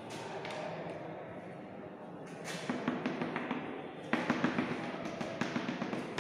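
Chalk on a chalkboard: quick runs of sharp taps as dots are dabbed onto the board, with some scraping strokes between them. The taps come thickest from about four seconds in.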